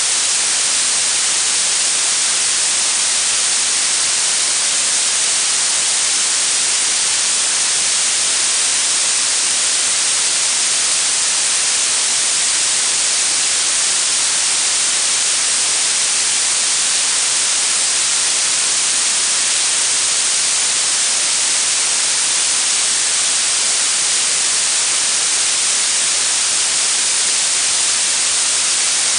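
Blue noise: a steady, even hiss weighted toward the high end, growing stronger the higher the pitch, with little bass and no change in level.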